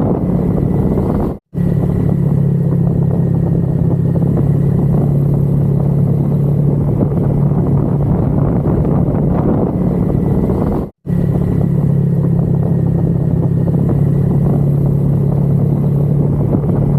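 Motorcycle engine running at a steady speed while riding, with a constant hum under road and wind noise. The sound cuts out to silence twice, briefly.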